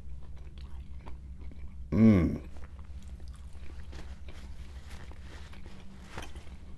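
A person chewing a bite of grilled steak, with soft wet mouth clicks, and a short falling vocal sound of appreciation about two seconds in. A steady low hum runs underneath.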